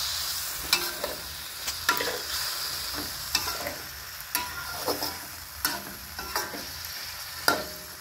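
Eggplant stir-frying in a metal wok: a steady sizzle, with the metal spatula scraping and knocking against the pan about once or twice a second.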